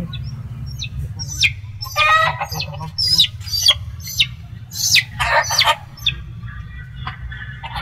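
Rooster clucking in short calls, about two seconds in and again around five seconds, with a few small high calls between them. A steady low hum runs underneath.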